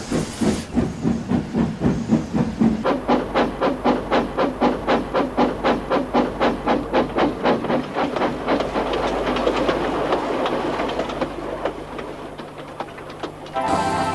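Steam locomotive puffing as it pulls away, its exhaust beats quickening from about three to about five a second, then running together into a steady rush that fades. Music comes in just at the end.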